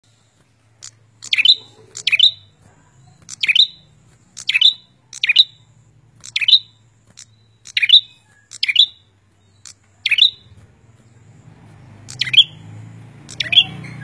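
Caged prenjak songbird calling vigorously: loud, sharp chirps repeated roughly once a second, often in quick pairs, with a faint low hum beneath and some background hiss rising near the end.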